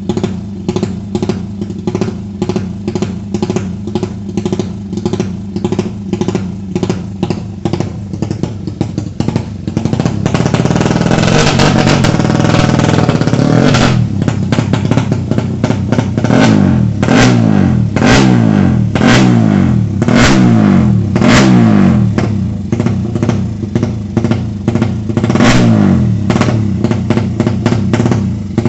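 Drumming music mixed with a single-cylinder Suzuki Satria FU drag-bike engine built out to 200 cc. About a third of the way in it gets much louder, with the pitch rising and falling about once a second as the engine is revved again and again.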